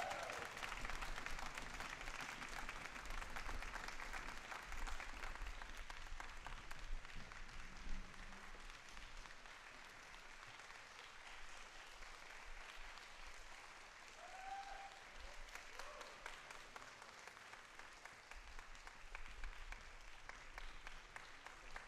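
Audience applauding, the clapping slowly thinning and fading.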